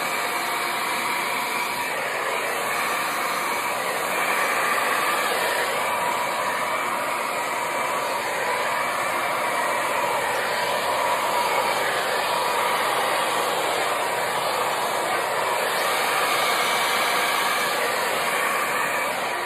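Handheld hair dryer running steadily, blowing wet acrylic paint outward across a canvas in a Dutch pour. It makes an even whoosh with a faint whine that wavers in pitch.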